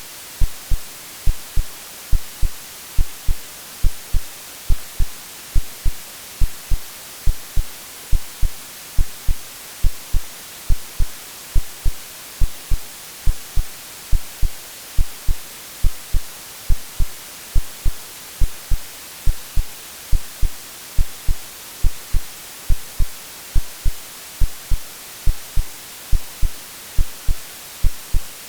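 AI-generated heartbeat, a steady double thump (lub-dub) repeating about once a second. It plays over a constant white-noise hiss, a womb-like mix meant to settle a crying baby.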